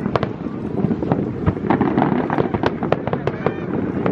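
Fireworks going off: many sharp cracks and pops in quick, irregular succession over a dense, steady low din.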